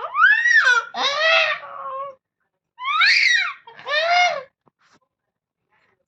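Cat crying out in loud, drawn-out meows, four calls each rising and falling in pitch, with a pause in the middle.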